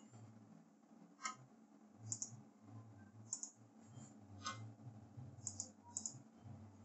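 Faint, scattered clicks of a computer keyboard, about six of them, some in quick pairs, over a low steady hum.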